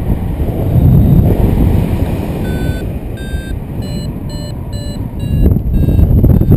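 Wind buffeting the microphone in flight, with a paragliding variometer's short electronic beeps starting about two and a half seconds in, two or three a second and stepping slightly up in pitch: the climb tone that signals the glider is rising in lift.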